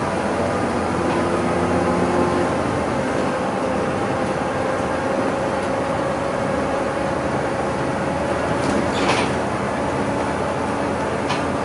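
Bus running at cruising speed, heard from inside the cabin: steady engine and road noise with a faint steady whine, and a brief hiss about nine seconds in.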